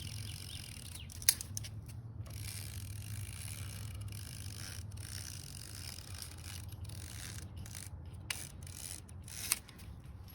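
Utility knife slicing through window screen mesh along the inside of the frame: a scratchy rasping in stretches broken by short pauses, with a few sharp clicks.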